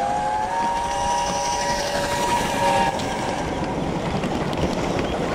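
A model steam locomotive's whistle sounds a three-note chord for about three seconds, sliding up slightly as it starts. It sits over a steady hissing running noise from the Gauge One live-steam locomotive on the track.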